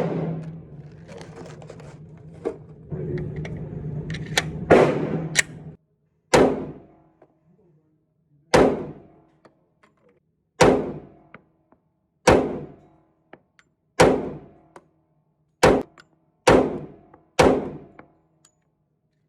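Handgun shots fired singly: two shots over background noise, then eight more shots about one to two seconds apart, each a sharp crack that dies away quickly.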